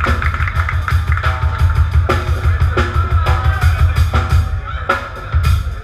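Live band playing loud, led by a drum kit with fast, continuous kick-drum pulses and regular snare hits over a bass guitar. The playing breaks briefly just before the end, then comes back in.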